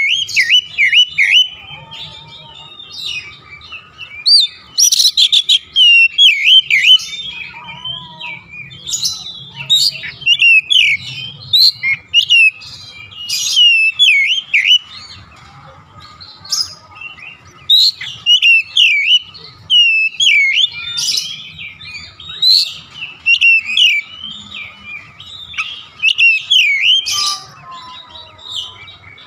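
Oriental magpie-robin (kacer) singing at length: quick, varied phrases of clear whistled notes, many of them sweeping up and down, coming in bursts with short pauses between.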